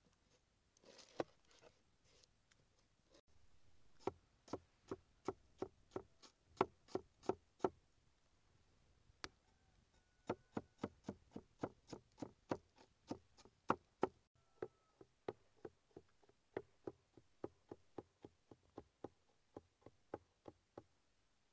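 A broad cleaver-like knife chopping onion on a wooden board: sharp, even knocks of the blade on the wood, about three a second, starting about four seconds in after a little crunching as the onion is cut.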